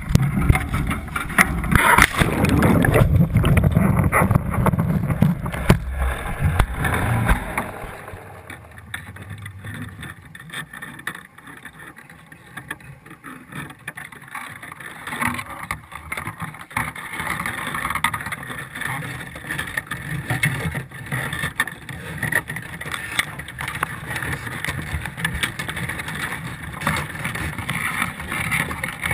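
Loud rumbling and knocking as a camera fixed in a crab pot goes into the water; about eight seconds in the sound drops to muffled underwater noise with scattered clicks.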